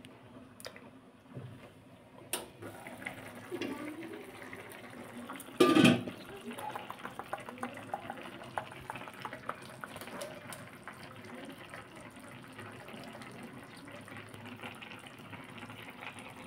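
Chicken curry bubbling and sputtering at a boil in an open pan, a dense steady crackle of popping bubbles. About six seconds in there is a brief loud clatter as the glass lid comes off the pan.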